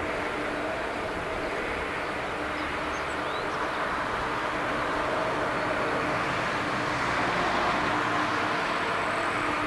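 Boeing 777-300ER's twin GE90-115B turbofans at takeoff power on the takeoff roll: a steady jet roar with a low hum under it, growing slightly louder in the second half.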